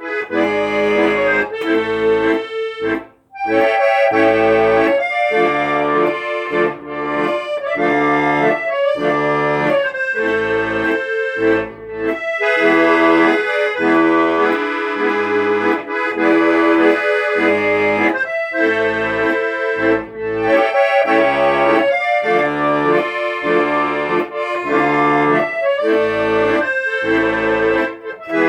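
Instrumental music on an accordion: a melody in held chords over a regular, pulsing bass accompaniment, with brief breaks between phrases.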